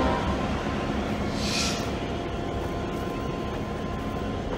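Diesel locomotive running past at low speed, its engine and the wheels on the rails making a steady rumble. There is a short high hiss about a second and a half in.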